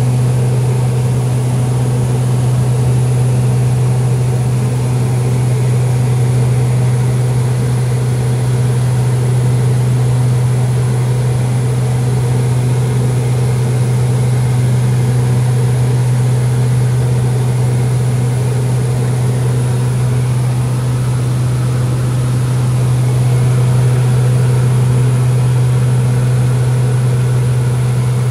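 Steady drone of a small propeller plane's engine heard inside the cabin: a strong low hum that holds the same pitch throughout.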